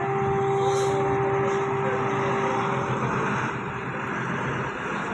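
Bus engine running, with a steady whine heard over it that fades out about three seconds in.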